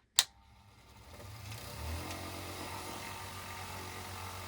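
VEVOR mini bench grinder/buffer polisher switched on with a sharp click, its electric motor spinning up over about two seconds and then running with a steady hum. The owner finds it not the fastest.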